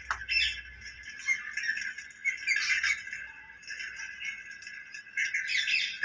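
Rose-ringed (Indian ringneck) parakeet squawking harshly in three short bouts: one right at the start, one about two and a half seconds in, and one near the end.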